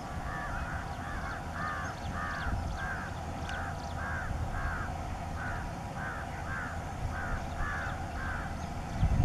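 A bird calls over and over, about two harsh calls a second for some eight seconds, over the low, steady rumble of a distant ALCO diesel locomotive's engine.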